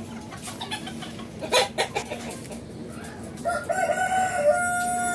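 Rooster crowing once: a long held call that starts about three and a half seconds in and falls slightly at its end. Before it come short, sharp clucks from chickens.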